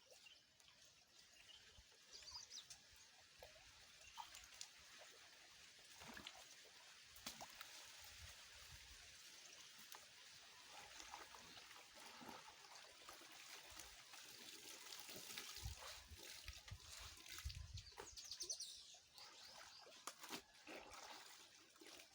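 Faint steady trickle of stream water, with scattered small knocks.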